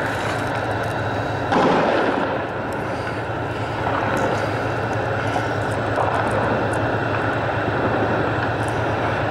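Steady engine drone with a rushing noise over it, a little louder from about a second and a half in.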